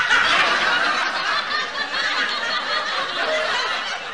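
Canned audience laughter, a laugh track of many people laughing together, slowly fading out.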